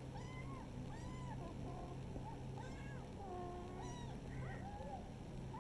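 Kitten mewing repeatedly: a dozen or so short, high-pitched, arching mews in quick succession.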